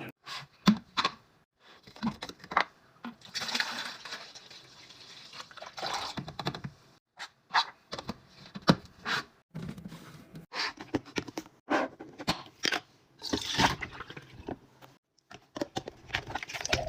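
Fridge restocking handling sounds: containers, bottles and packaging clicking and clattering as they are picked up and set down, with a couple of longer stretches of hissing, liquid-like noise.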